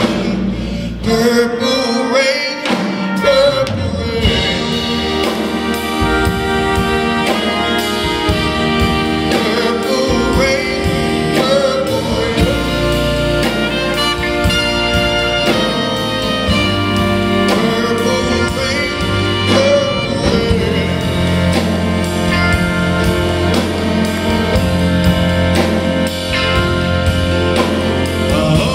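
Live band music from electric guitar, piano and bass, with a man singing over it.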